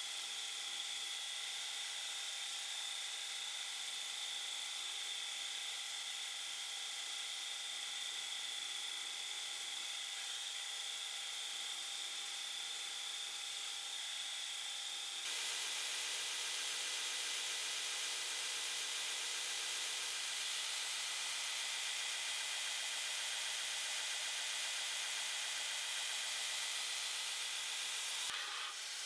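Belt grinder running with a steady high whine while a Damascus steel lure blank is ground against the belt. About halfway through the sound gets louder and rougher, and it breaks off briefly near the end.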